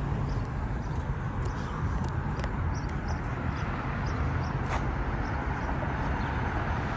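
Outdoor street ambience: steady traffic noise with a low rumble, and a few faint short high chirps scattered through it.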